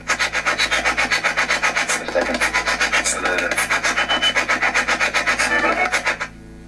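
SBox spirit box sweeping through radio stations: a loud, rapidly and evenly chopped hiss with snatches of garbled broadcast voices, cutting off about six seconds in.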